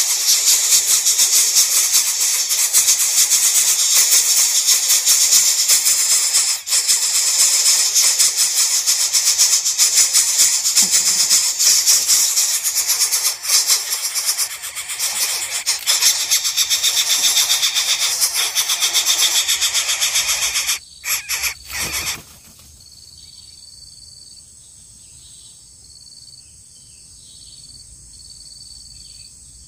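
Coucal chicks in the nest begging for food with a loud, continuous rasping hiss. It stutters and stops abruptly about three-quarters of the way through, leaving a faint cricket chirping at an even pace.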